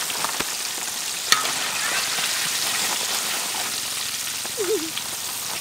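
Deep-frying oil sizzling steadily in a large wok around battered onion-and-egg balls, with a sharp tap about a second in.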